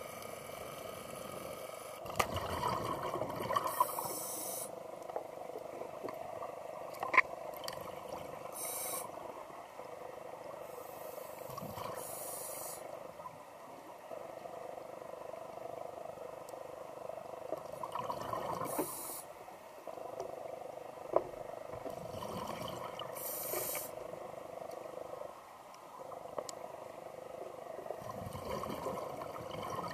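Underwater sound of scuba regulator breathing: a hissing rush of exhaled bubbles every few seconds over a steady underwater hiss. Two sharp clicks stand out, the louder about a quarter of the way in.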